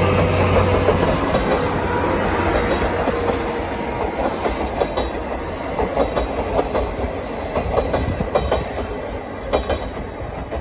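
A steam train passing close by: a steady low rumble as the locomotive goes past, then the coaches rolling by with their wheels clacking over the rail joints, slowly fading as the train moves away.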